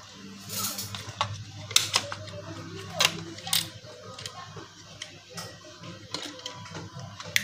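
Irregular clicks and light knocks of hard plastic and metal as an LED headlight bulb and its holder are worked loose and unclipped from a Suzuki Viva 115's headlight housing, over a low steady hum.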